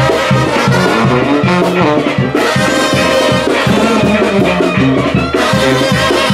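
Brass band playing a lively tune, trumpets and trombones over a steady pulsing bass line.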